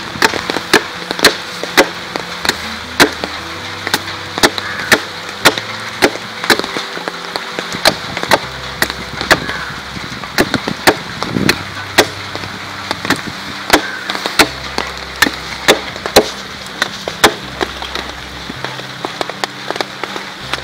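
A freshly cut wooden stick being shaved to a sharp point with a blade: sharp chopping strokes, irregular, about one or two a second.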